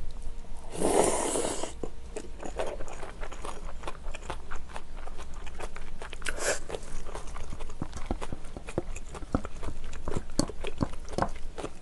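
Close-miked chewing of a mouthful of braised kimchi with Cheongyang green chili: many small wet clicks and crunches. There is a louder noisy burst about a second in and another a little past halfway.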